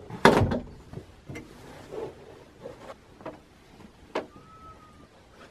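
Metal-framed sofa bed being folded up: a loud clunk and scrape of the frame near the start, then a few lighter knocks as cushions and bedding are set on it.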